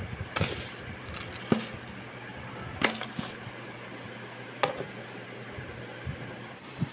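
A few sharp knocks and clinks from a stainless steel mixer-grinder jar being handled, two of them ringing briefly, over a steady low hum.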